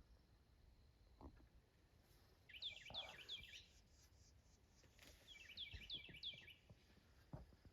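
Faint birdsong: a small bird gives two short bursts of quick, high chirps, a few seconds apart, against quiet woodland background.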